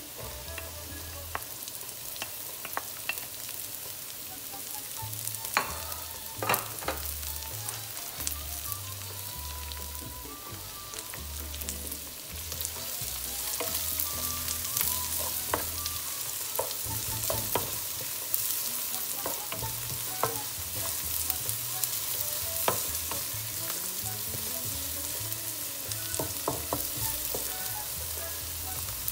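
Chopped onion sizzling in hot oil in a nonstick pan, stirred with a wooden spatula that scrapes and clicks against the pan. The sizzle gets louder about halfway through.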